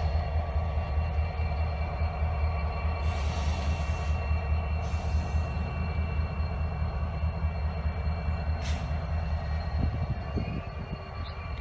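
Canadian Pacific freight train rolling past, its diesel locomotive and loaded hopper cars making a steady low rumble, with faint high steady whines from the wheels. It eases off a little near the end as the train moves away.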